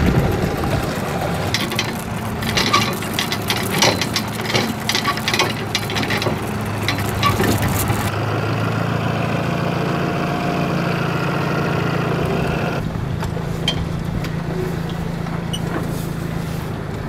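A boat's motor running steadily, with scattered clicks and knocks over the first half.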